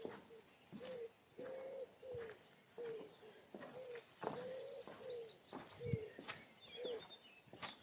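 Low cooing notes repeated about twice a second, some held level and some falling, with faint small-bird chirps higher up and scattered light clicks.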